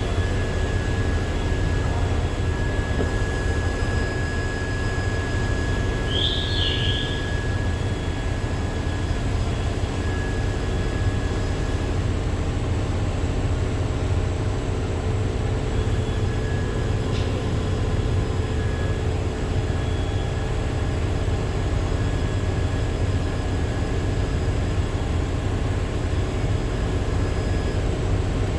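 Steady low mechanical rumble with faint steady hum tones, a short chirp about six seconds in and a faint click midway.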